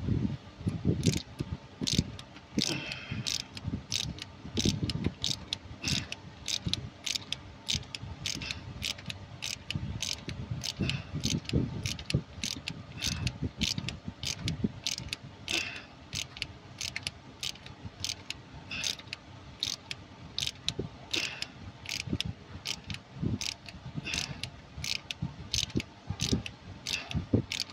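Hand ratchet clicking in short strokes, about two clicks a second, as rocker arm bolts on a 2015 Chevrolet Tahoe cylinder head are run down to 30 Nm. Duller knocks sit under the clicks.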